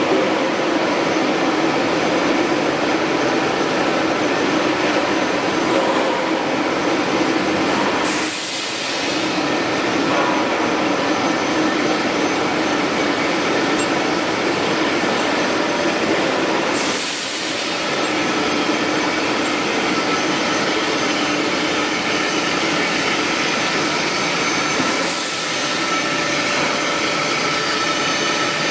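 Welded steel tube roll-forming mill running: a steady loud industrial drone of the forming rolls and drives, with faint steady whines above it. The noise dips briefly three times, each dip with a short high chirp.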